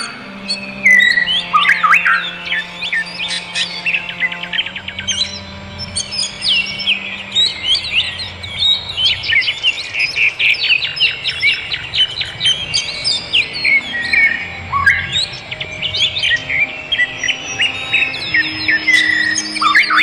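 Many birds chirping and twittering in dense, overlapping quick calls and short whistles, over soft background music of long held low notes.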